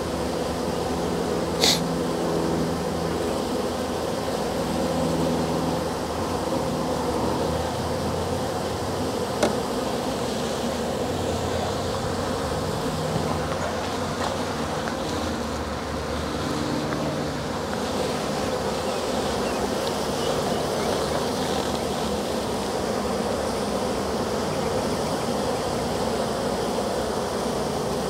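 A honey bee swarm buzzing: a steady hum of many bees together, making a lot of noise as the swarm moves into a nuc box. Two brief clicks stand out, one about two seconds in and another near the tenth second.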